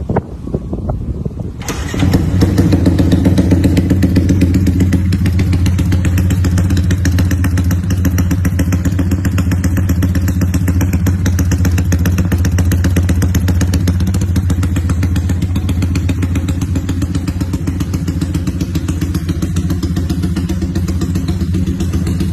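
Yamaha Y15ZR (MX King) 150cc single-cylinder four-stroke engine, fitted with an aftermarket exhaust, starts up about two seconds in. It then settles into a steady rumble idle.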